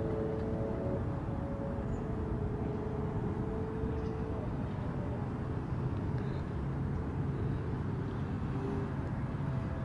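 Steady low rumbling noise. Faint background music sits under it in the first few seconds.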